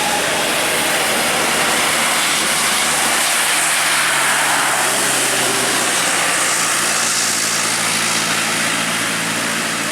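Diesel dump truck climbing an incline, its engine running steadily under load with heavy road noise, the engine note edging up slightly past the middle.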